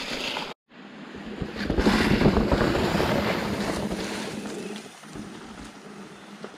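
Mountain bike tyres rolling over dry fallen leaves, a rustling crunch that builds, then fades as the bike rides away. A brief cut in the sound about half a second in.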